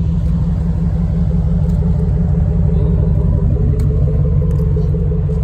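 2006 Chevrolet Monte Carlo SS's 5.3-litre LS4 V8 idling, heard at the exhaust tip as a loud, steady, deep rumble.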